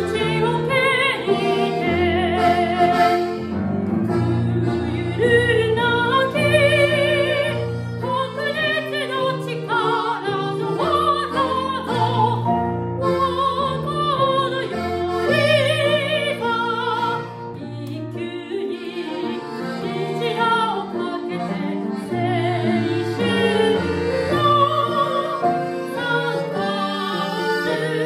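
Classically trained soprano singing with wide vibrato, accompanied by a grand piano and a Hohner piano accordion.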